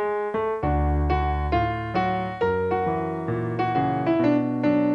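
Instrumental break of a cheerful song: a melody of short, separate notes over changing bass notes, with no singing.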